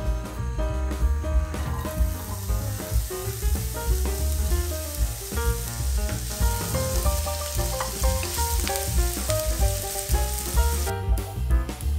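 Chopped onion sizzling in hot oil in a frying pan as it is stirred with a wooden spatula. The sizzle comes up about two seconds in and stops shortly before the end, under background music with a steady beat.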